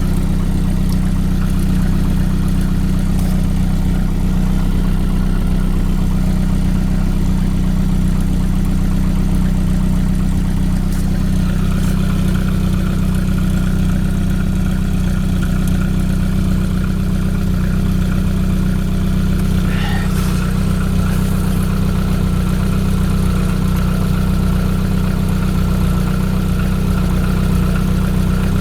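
Vehicle engine idling steadily at an even, unchanging speed.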